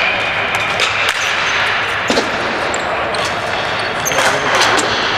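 Ball hockey play: sticks and ball clacking on a hard floor, several sharp knocks over a constant rumble of play, with players' voices.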